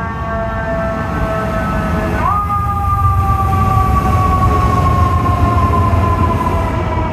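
Fire truck siren wailing: its tone slides slowly down in pitch, jumps back up about two seconds in and starts falling again, over the low rumble of the truck, which grows louder as it comes closer.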